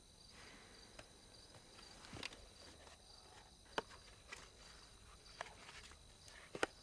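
Crickets chirping steadily in the night, faint. Over them come a few scattered clicks and rustles of a book being handled, the sharpest two close together near the end.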